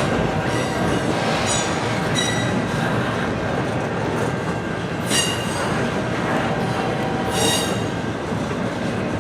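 Freight train cars rolling past with a steady rumble of wheels on rail, broken by about four short, high-pitched wheel squeals; the one near seven and a half seconds is the longest.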